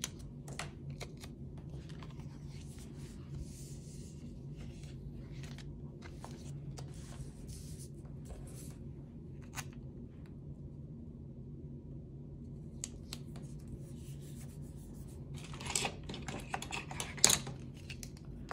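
Scissors snipping and paper stickers rustling as they are cut and handled, with scattered light clicks. A louder stretch of crinkling and one sharp snap come near the end, over a steady low hum.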